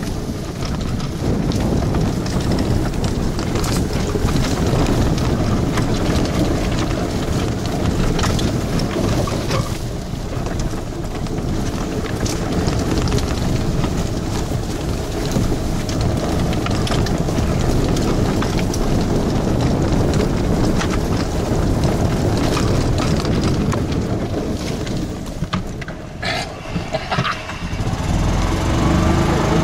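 Golf cart driving fast over a bumpy dirt trail: wind noise on the microphone with frequent rattles and knocks as the cart bounces. Near the end the sound briefly drops, then a steadier hum with a clear pitch comes in.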